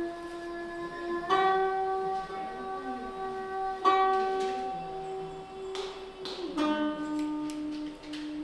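Slow music of single plucked zither notes, each left to ring out for two to three seconds. Three notes sound, the last a little lower, with a few light clicks between them.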